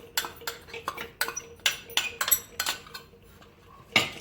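A metal spoon clinking and knocking against a cooking pan in a quick, irregular run of strikes while ground sugar is added to the barfi mixture, then one louder knock near the end.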